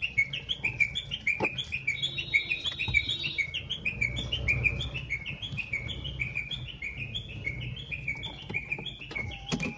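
Regular, high, bird-like chirps, about three a second, over the low hum of the car's engine heard from inside the cabin. A click near the end, after which the chirping stops.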